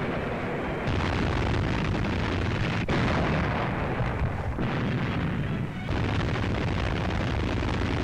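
Battle din on an old wartime film soundtrack: a dense, continuous rumble of explosions and gunfire, shifting abruptly a few times.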